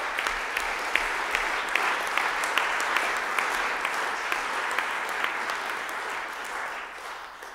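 Audience applauding, a steady spread of many hands clapping that dies away near the end.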